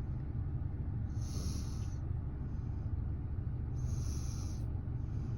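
Baby snoring in its sleep: two hissing breaths about a second long, roughly three seconds apart, with fainter breaths between. Under them runs the steady low rumble of a moving car's cabin.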